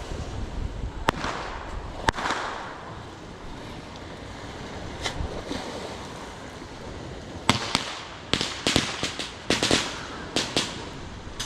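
Fireworks going off: two sharp bangs about a second apart, with a trailing rumble after the second, then a quick run of crackling pops near the end.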